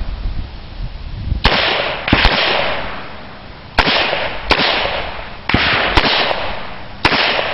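Pistol shots, about seven, mostly in pairs a little over half a second apart, each followed by a long echo.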